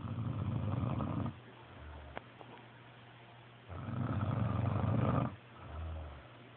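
Loud, rattling snores, two of them about four seconds apart, each followed by a shorter, softer low sound.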